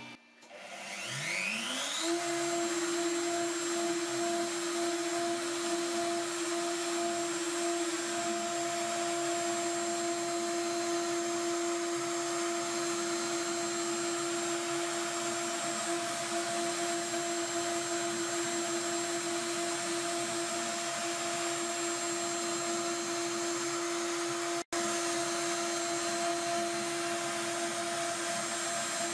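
CNC milling spindle spinning up about a second in with a rising whine, then running at a steady high-pitched whine as a fine end mill cuts a relief into a plastic rain pipe on a rotary fourth axis.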